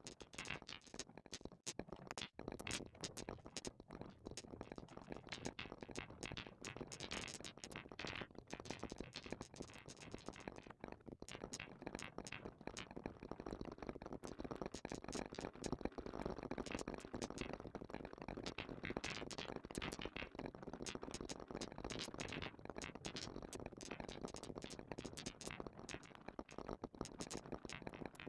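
Marbles rolling and clicking along a plastic marble-run track, a dense, continuous, irregular clatter.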